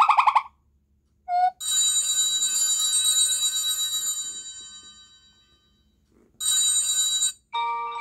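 Google Pixel ringtone previews playing from the phone's speaker as tones are picked from the Pixel Sounds list in turn. A fast warbling tone cuts off just after the start. About a second in there is a short rising blip, then a bright chiming ringtone that rings and fades away over about four seconds. Another bright chime starts and is cut off abruptly, and a new tone begins near the end.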